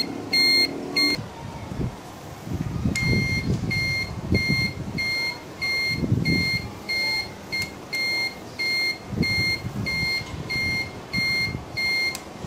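Honda CD-70 turn-signal beeper sounding a high, even beep about twice a second in step with the flashing indicators, showing the newly wired indicator circuit works. It pauses for about two seconds near the start, then carries on, with low rumbling noise underneath.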